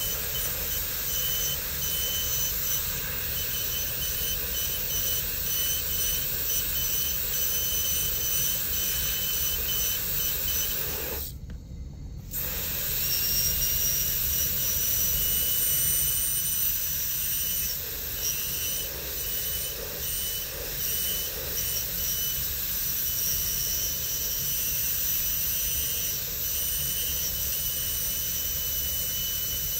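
High-speed air-turbine dental handpiece with a bur and water spray, a steady high-pitched whine over hiss as it cuts a crown preparation on a plastic typodont tooth. It cuts out briefly about eleven seconds in, then runs again with its pitch a little changed.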